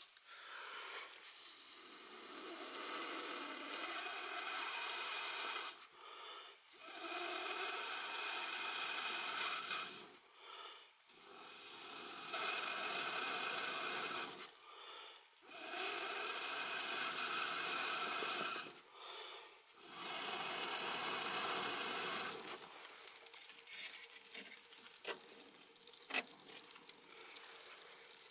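Air blown through a Bargo telescoping blow poker into the firebox of a wood stove, fanning newly lit kindling. There are five long blows of a few seconds each, with short pauses for breath between them. In the last few seconds the kindling crackles with sharp pops.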